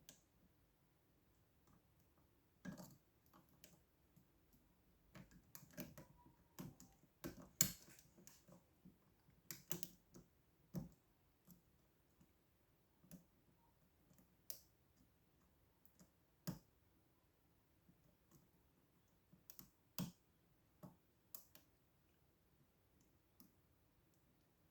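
Lock-picking tools working inside a pin-tumbler lock: irregular, faint metallic clicks and taps from the pick and tension wrench, busiest in the first half and sparser toward the end.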